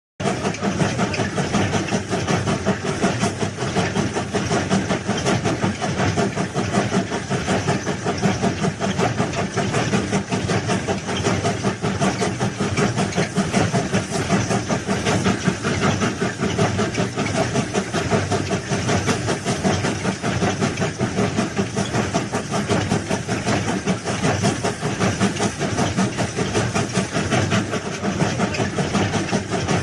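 Engine of heavy railway track-laying machinery running steadily, with a fast, even pulsing.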